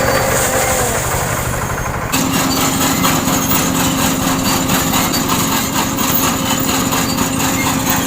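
Combine harvester engine running steadily while harvesting rice. About two seconds in, the sound changes abruptly and carries on at a new steady pitch.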